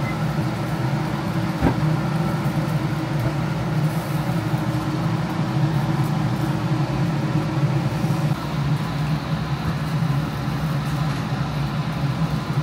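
Steady low mechanical hum with the sizzle of skewered eel grilling over charcoal.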